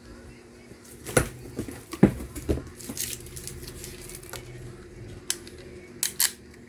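Box and packaging being handled and opened by hand: scattered knocks, taps and scrapes, the sharpest about two seconds in and two close together near the end.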